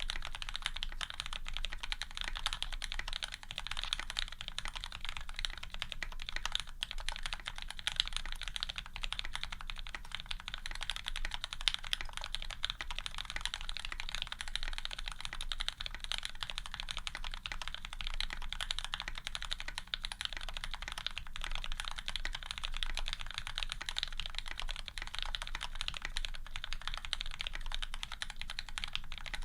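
Continuous fast typing on a Serratus custom mechanical keyboard with lubed Cherry Retooled Black linear switches, an aluminium plate and GMK keycaps: a dense, unbroken stream of keystroke clacks.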